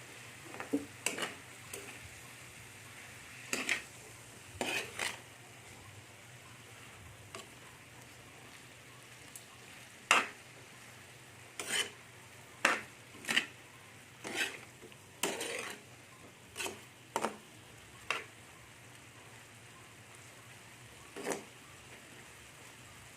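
A utensil scraping and clinking against a frying pan as squid is stirred, in about fifteen short irregular strokes, over a faint steady sizzle.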